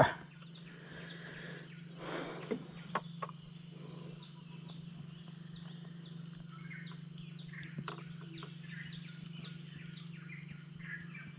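A run of short, high chirps from a wild creature, each chirp falling in pitch, repeating about twice a second. A steady low hum runs underneath, with a few faint clicks and rustles from handling.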